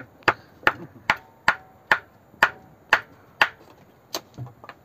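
A large blade chopping into wood: about nine sharp, evenly spaced chops, roughly two a second, slowing and getting fainter near the end.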